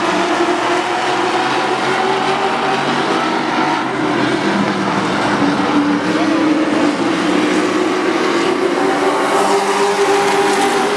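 A pack of short-track NASCAR race trucks running together at speed, a steady engine drone. Their engine note rises gradually over the second half.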